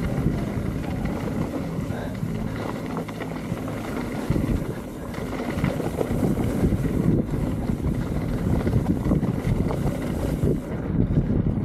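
Wind buffeting the microphone with a steady rumbling rush, as when moving fast down a ski slope.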